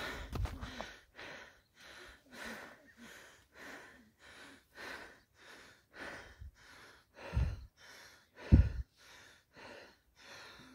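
Heavy, rapid breathing of a person climbing steep stairs under a load, about two breaths a second, the sound of hard exertion. Two low thumps come in near the end.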